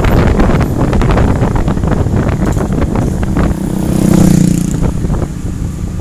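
Heavy wind noise buffeting the microphone of a moving vehicle, with a passing motorcycle's engine swelling and fading about four seconds in.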